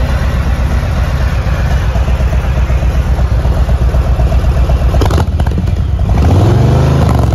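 Harley-Davidson Road Glide Special's Milwaukee-Eight 114 V-twin idling through its exhaust with a steady pulsing beat. A brief clatter comes about five seconds in, then one throttle blip: the revs rise and fall back near the end.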